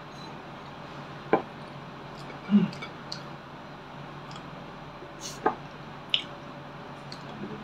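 Eating with the fingers, close to the microphone: a handful of short, sharp wet smacks and clicks from the mouth and fingers, spaced a second or more apart.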